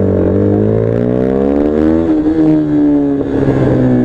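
Motorcycle engine heard from the rider's seat, accelerating as the bike pulls away, its pitch climbing for about two seconds, then levelling off and easing slightly.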